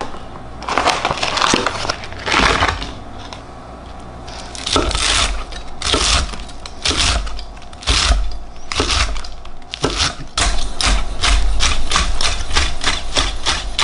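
Large chef's knife chopping fried chicken nuggets on a wooden cutting board, each stroke a crunchy cut ending in a thud on the wood. After a few rustling handling sounds, the cuts come one at a time, then from about ten seconds in turn into fast steady chopping, about three to four strokes a second.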